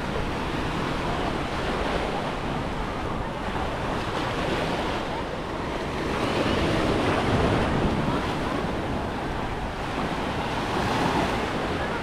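Sea waves washing onto the beach, with wind buffeting the microphone. The surf swells louder about halfway through and again near the end.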